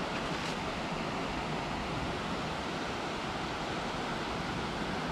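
Steady rushing of flowing river water, an even, unbroken noise.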